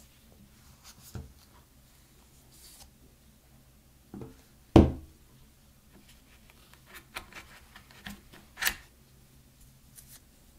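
Gloved hands handling an iPhone 12 Pro Max box and its paper packaging: soft scraping and rubbing with light taps. A dull thump comes about halfway through, and a sharper click near the end as the coiled cable is lifted out.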